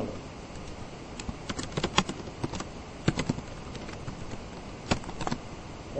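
Computer keyboard typing: irregular keystroke clicks, some in quick runs, over a steady hiss.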